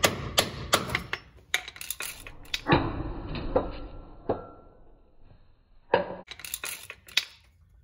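Metal hand tools clinking and knocking in a quick run of sharp clicks, then a short quieter gap, then another cluster of clicks about six seconds in.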